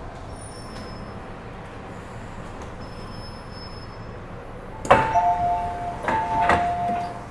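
Metro-Cammell M-Train's door chime, a short higher tone falling to a longer lower one, sounding twice in a row over the carriage's steady hum. Each chime starts with a sharp knock.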